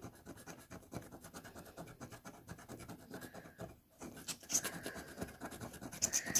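Scratch-off card being scratched, a quick run of short scraping strokes that pause briefly and then get louder about four seconds in.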